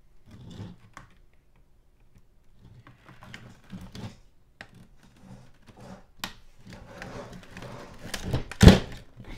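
Scattered small clicks and taps of hand tools working at a stubborn stripped screw in an RC truck's suspension, with one loud thunk near the end.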